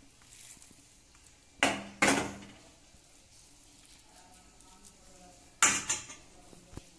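Metal spoon clinking against a steel bowl while scooping out radish stuffing: two quick clinks about a second and a half in and one more near the end, each with a short metallic ring.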